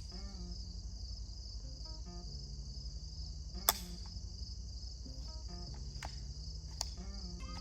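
Steady high-pitched insect chirring, broken by four sharp cracks of pistol shots; the loudest comes a little under four seconds in.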